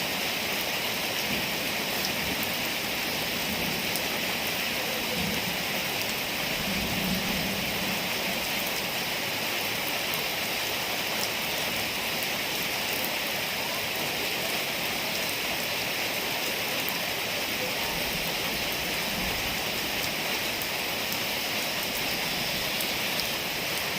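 Heavy rain falling steadily, an even hiss of rain on surfaces during a rainstorm.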